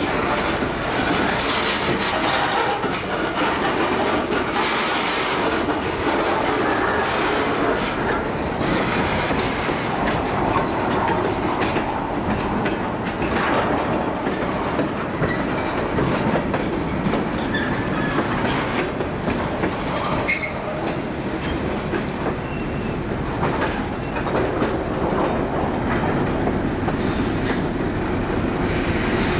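Freight cars rolling slowly past, their steel wheels clicking over rail joints and squealing briefly now and then. Near the end an end-cab diesel switcher comes by.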